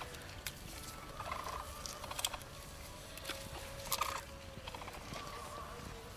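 A group of capybaras eating bamboo leaves: crunching and leaf rustling with scattered clicks, mixed with short chirping and clucking calls from the animals.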